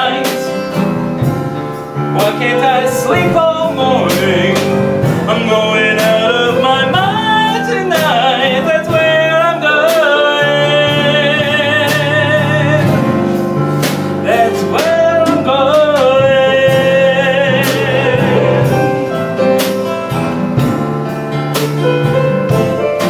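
Live band of piano, drums and guitar playing a song while singers hold long notes with vibrato, with steady drum beats throughout.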